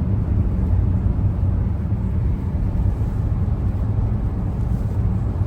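Steady low rumble of a car driving on a snowy highway: road and engine noise.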